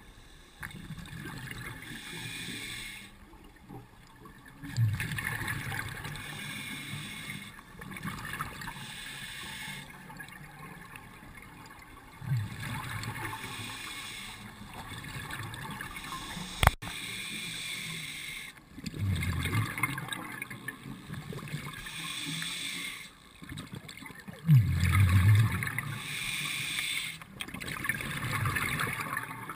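Scuba diver breathing through a regulator underwater: hissing inhalations alternate with low, bubbling exhalations, a breath every several seconds. There is one sharp click about two-thirds of the way through.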